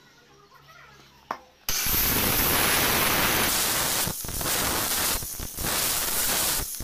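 Air blower blasting sawdust out of a wooden box: a loud, even rush of air that starts abruptly about two seconds in and dips briefly a few times.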